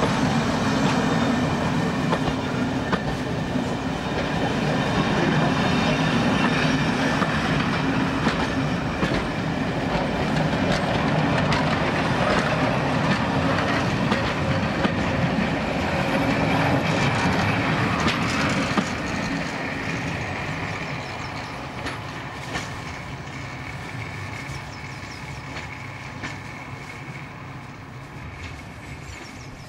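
Train of passenger coaches rolling past close by, with wheels clicking over the rail joints. The sound fades steadily from about two-thirds of the way through as the train moves away.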